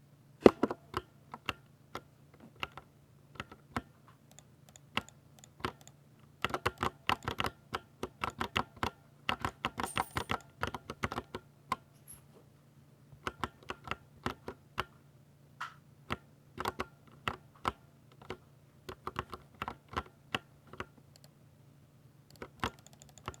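Typing on a Ducky 60% mechanical keyboard with linear silver switches: quick runs of key clacks broken by short pauses, over a faint low hum.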